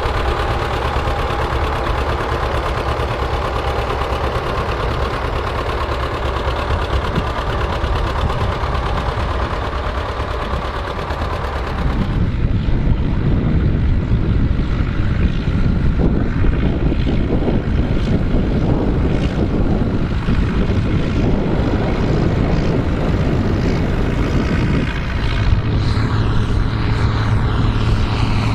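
John Deere tractor engines running steadily under load while ploughing. The sound changes abruptly about twelve seconds in and again near the end, where a steady low hum comes in.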